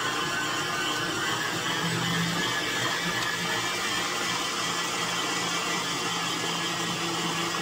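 Electric mixer running steadily, its motor humming as the beaters whip chocolate buttercream frosting.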